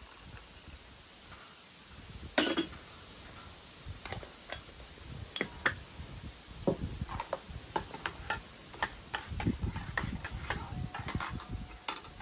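Clinks and knocks of enamelware and utensils while coffee is fixed in an enamel mug: one sharp ringing clink about two and a half seconds in, then a scattered run of lighter clinks and taps.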